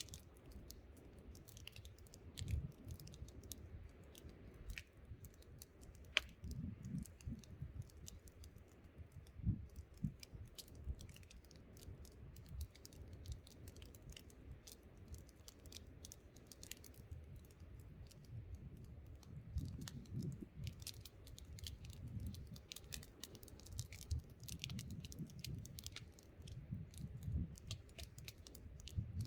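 Wood campfire crackling, with frequent sharp pops and snaps, one louder pop about six seconds in, over a low gusting rumble of wind.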